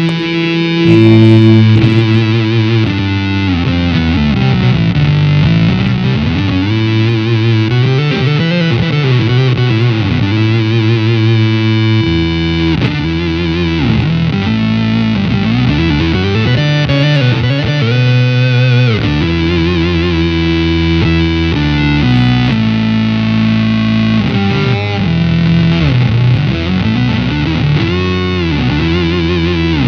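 Electric guitar played through an EarthQuaker Devices Data Corrupter PLL synth pedal, with the square wave blended with the subharmonic oscillator for a thick, fuzzy synth tone. It plays sustained notes that change in steps, with several stretches where the pitch glides up and down.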